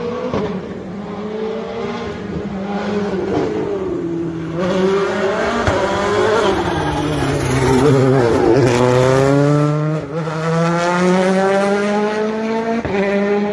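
Rally car's engine at full throttle on a twisting uphill stage, its note rising and falling with the throttle and gear changes. It is loudest a little past the middle, where the pitch drops sharply, then climbs steadily as the car accelerates away.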